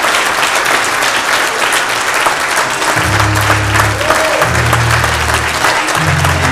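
Congregation applauding steadily, a dense crowd of clapping hands. About three seconds in, low held instrument notes begin under the clapping, changing chord about every second and a half.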